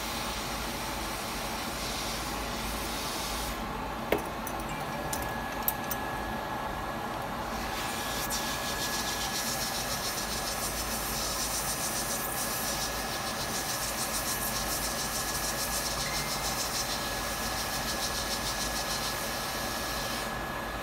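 Hot air rework station blowing on an iPhone 6s logic board to heat the solder around a chip: a steady airflow hiss with a faint high whine, growing stronger about eight seconds in. A couple of sharp clicks come about four and six seconds in.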